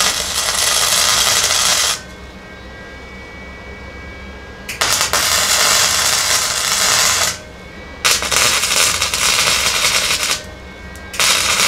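Lincoln Electric 140 flux-core wire-feed welder tack-welding a 2x6 steel tube rocker to the body sheet metal. It gives four spells of loud, even arc crackle, each a couple of seconds long, started and stopped in turn, with a low hum in the short pauses.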